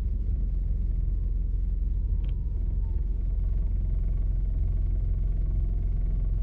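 Steady low rumble of street traffic, with a brief sharp click about two seconds in.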